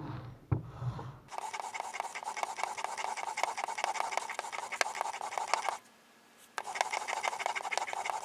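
Steel wood chisel in a honing guide scraping across 600-grit sandpaper laid on tile: a steady gritty rasping that starts about a second in, stops briefly near six seconds, and then resumes.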